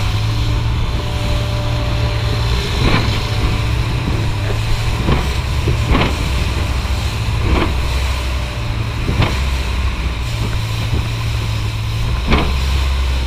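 A long-tail river boat's engine running at speed in a steady low drone, with the hull slapping through the chop and spray splashing about every second and a half.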